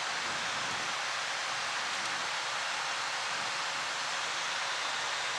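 Steady, even rush of air inside the cockpit of an Embraer regional jet in its climb, with a faint steady hum underneath.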